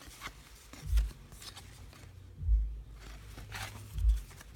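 Trading cards being handled and sorted by hand: light rustles and clicks of card stock, with three dull low thumps about a second and a half apart.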